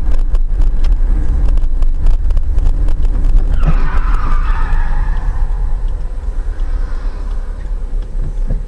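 Dashcam recording of a car driving, a heavy low rumble of engine and road. About three and a half seconds in, tyres skid for roughly two seconds as a car brakes hard at the intersection.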